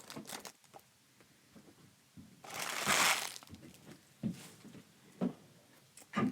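A trading-card pack wrapper crinkling as it is torn open for about a second, followed by a few faint taps of cards being handled.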